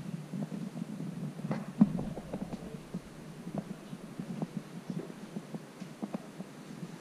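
Muffled low thumps about two to three times a second over a low rumble, with one louder knock about two seconds in: footsteps and handling noise picked up by a handheld GoPro action camera carried at walking pace.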